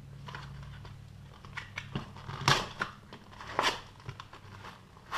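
Paper-and-cardboard pack of sanding discs being handled and pulled open: light crinkling and clicks, with two sharp rasping rips about two and a half and three and a half seconds in.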